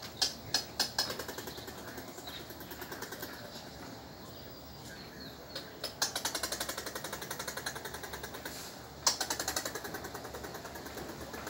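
Squirrel chattering: a few sharp chucks at first, then two long runs of rapid clicking at about ten a second, the first starting about six seconds in and the second, opening with a loud chuck, about nine seconds in.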